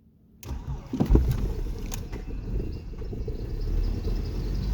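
BMW E46 316's N42 four-cylinder petrol engine cold-starting: the starter cranks about half a second in and the engine catches and runs roughly. This is the first morning start that, by the owner's account, dies after a few seconds.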